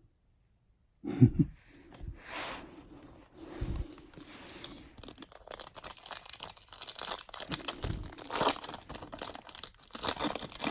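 Handling bumps, then a trading-card pack's foil wrapper being torn open and crinkled, a dense crackling that runs from about halfway through.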